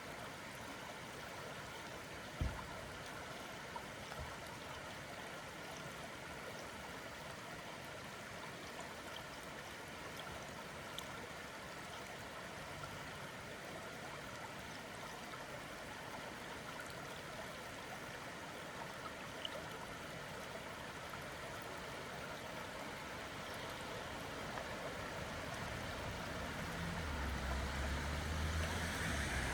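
Creek water flowing steadily, an even rushing sound. A single thump about two and a half seconds in, and the sound grows louder over the last few seconds as a low rumble joins it.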